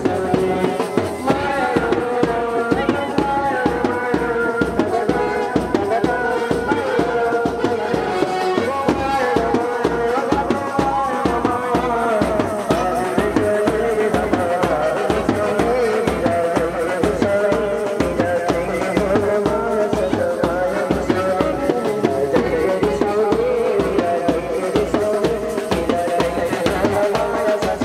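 Tharu folk dance music: a steady drum beat at about two beats a second under a wavering melody.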